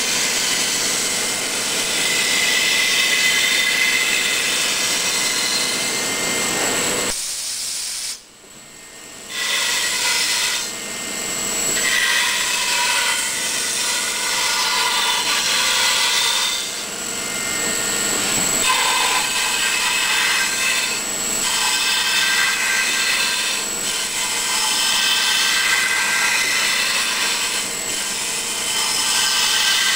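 Vertical milling machine running, its end mill cutting a styrofoam block: a steady machine noise with high tones over the hiss of the cut. The sound drops out briefly about eight seconds in.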